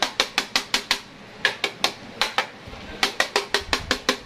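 Quick, sharp taps on a hard object, about six a second, in three runs with short pauses between them.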